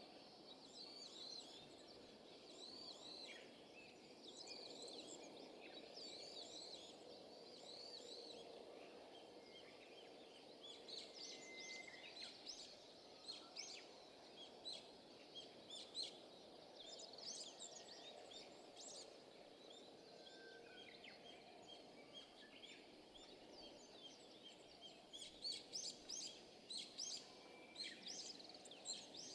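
Faint, busy bird calling over a low steady background hiss. Short high chirps repeat about twice a second at first, then give way to scattered chattering, with a dense burst of sharp calls near the end.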